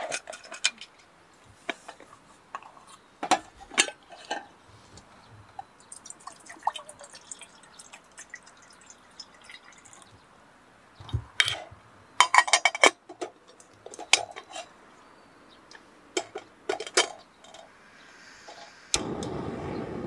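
Scattered clinks, small knocks and drips of water and dishes being handled, with a brief run of ringing clinks about two thirds of the way in. A steady rushing noise starts about a second before the end.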